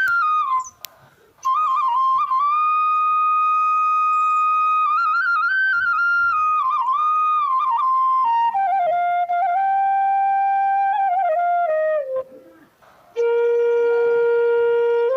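Background music: a solo flute melody of long held notes with quick ornamental turns between them, stepping down in pitch through the middle. It breaks off briefly about a second in and again about twelve seconds in.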